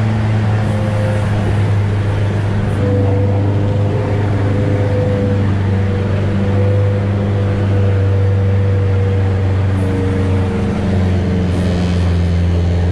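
Engine of a Shatun all-terrain vehicle running steadily under load, heard from inside the cab as it wades through a duckweed-covered peat bog: a constant low drone with a thin whine above it.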